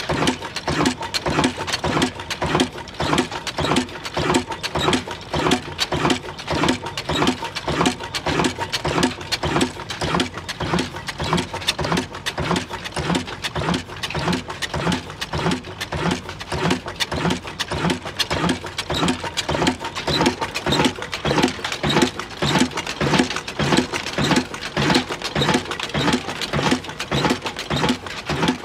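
Old black Ruston Hornsby stationary diesel engine running steadily, its firing strokes making an even, rhythmic beat.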